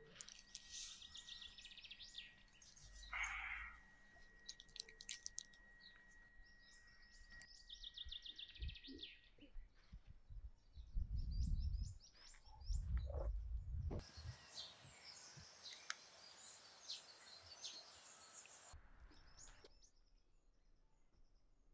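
Outdoor ambience: small birds chirping in quick repeated series, with a few low rumbling bumps around the middle and a stretch of steady hiss for several seconds after them.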